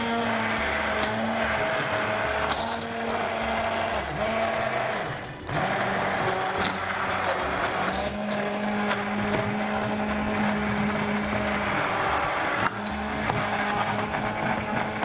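Hand-held immersion (stick) blender running in a pot, puréeing sweet potato and potato soup: a steady motor whine that dips briefly and shifts pitch about five seconds in.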